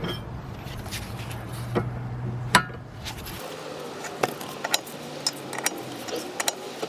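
Irregular light metallic clicks and clinks as a Saab 900S tie rod end is turned on its threaded tie rod, counted turn by turn from fully tightened. A steady low hum underneath stops about three and a half seconds in.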